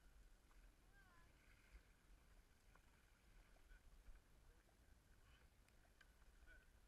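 Near silence: a faint low rumble, with a faint short rising-and-falling call about a second in.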